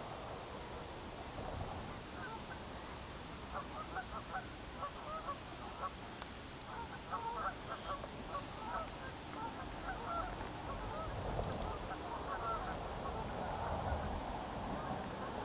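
Geese calling: a long run of short, repeated honks from several birds, thickest in the middle of the stretch.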